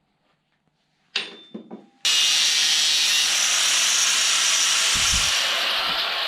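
Electric drill running steadily as it drills a bolt hole through a steel repair panel, starting about two seconds in after a few short handling knocks.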